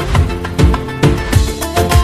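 Upbeat background music with a steady, heavy drum beat.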